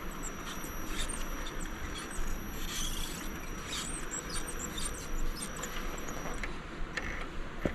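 RC scale crawler's small electric motor and geared drivetrain whirring in short stop-start bursts, with light clicks of the truck working over rock.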